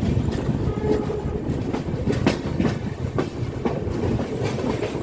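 Passenger coach of an Indian Railways express running over the rails, heard at an open coach door: a steady low rumble with a run of uneven wheel clacks over rail joints and points.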